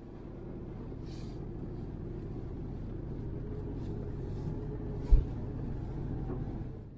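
Steady low rumble of a motor vehicle running, with faint engine hum, and a single short thump about five seconds in.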